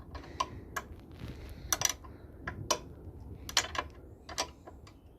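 Spanners working the 10 mm and 12 mm chain adjuster lock nuts on a motorcycle swingarm: irregular sharp metallic clicks and taps, some coming in quick pairs.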